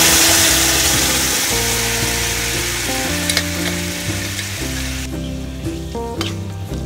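Cooked beans and their cooking water poured into hot tempering oil in a kadai, sizzling loudly and then fading away over about five seconds. Near the end a steel spoon knocks against the pan a few times as the beans are stirred.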